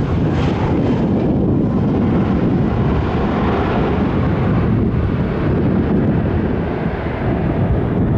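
Airliner engine noise, a deep steady rumble whose higher hiss dies away from about three seconds in as the aircraft moves off, with wind buffeting the microphone.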